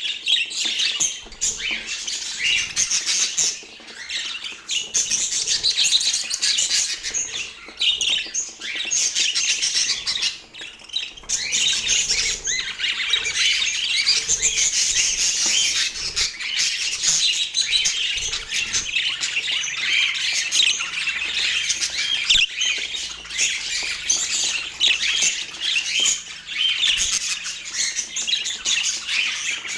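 A flock of budgerigars chattering and squawking continuously: a dense mix of many overlapping high chirps, warbles and squawks.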